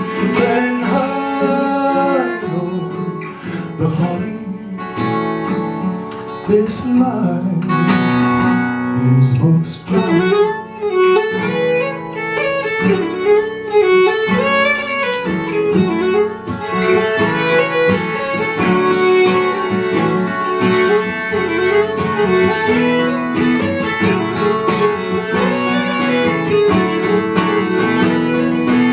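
Acoustic string band playing an instrumental break, a fiddle carrying a sliding, wavering melody over strummed acoustic guitar.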